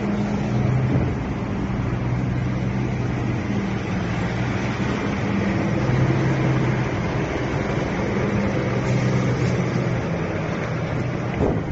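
Truck engines running with steady roadway noise: a low, even hum that swells and fades every few seconds.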